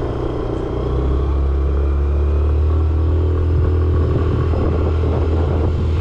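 Motor scooter engine running steadily as the scooter is ridden along a road, heard as a steady low drone that grows slightly louder about a second in.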